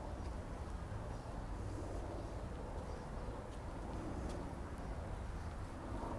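City park ambience: a steady low rumble of distant traffic with a faint murmur and a few faint ticks.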